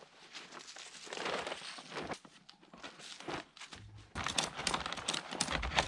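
Plastic tarp crinkling and rustling as a rope is run around it and pulled tight to tie it down over a boat. About four seconds in, a quick run of clicks and rattles starts.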